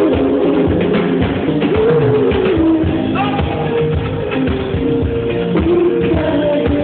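Live band playing a slow R&B pop song, a drum kit keeping the beat under held, gliding vocal and instrument notes.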